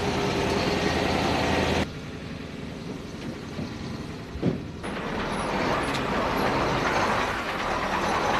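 Diesel engines of heavy KamAZ military trucks running. A steady idling hum for about the first two seconds, then after a cut a single knock, and a louder, rougher engine noise that swells toward the end as a truck moves.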